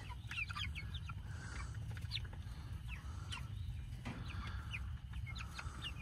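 A flock of young Cornish cross meat chickens peeping, with many short, scattered high cheeps over a low steady background rumble.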